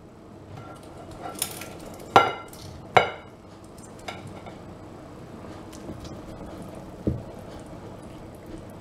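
Kitchen tongs clinking against a large stainless steel stockpot several times, sharp ringing knocks, as lamb shanks are shifted about in the stock. A duller knock comes near the end.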